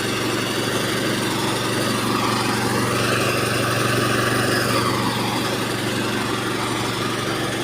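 Air compressor running steadily as it pumps air into a repaired tire.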